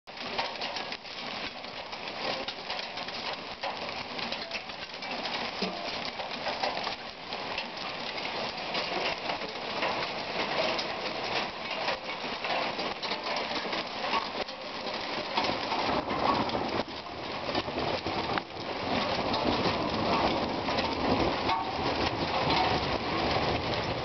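Rain falling on a grassy yard and a paved step: a dense, steady patter of drops that grows louder about two-thirds of the way through.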